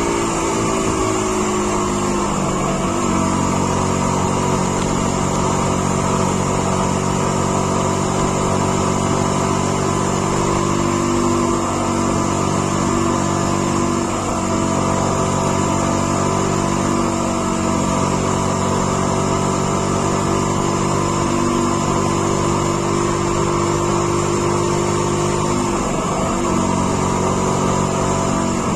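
A vehicle engine running under load as it drives, heard from the driver's seat. Its pitch falls over the first few seconds, then holds mostly steady with small dips.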